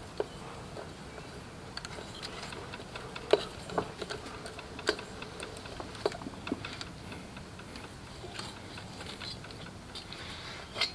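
Socket ratchet ticking in rapid runs as head bolts are backed out of a Kohler K301 cylinder head, with a few sharper metal clicks in the middle.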